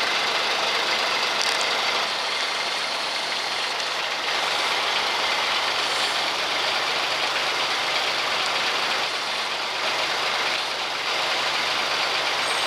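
Scania 94D fire engine's diesel engine idling steadily while the truck stands still.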